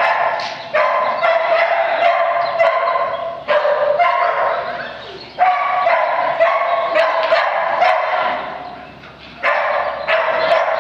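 A dog barking over and over in runs of a few seconds, with short breaks between the runs.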